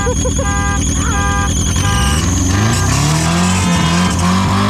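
Several add-on car horns wired to the hazard flasher, beeping together in an on-off rhythm of about one and a half beeps a second over an idling car engine, like a homemade car alarm. About two seconds in the horns stop and the engine revs up.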